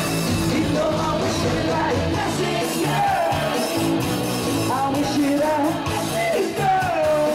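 Live band music played loud through a PA system, with a male singer's voice on a microphone carrying the melody and some yells from the crowd.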